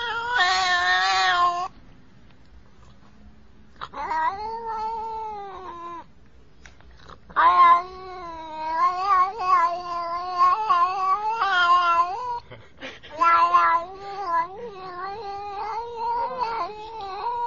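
Domestic cat yowling in long, drawn-out calls whose pitch wavers up and down, like a cat 'talking'. There are four calls, the third the longest, with short pauses between them.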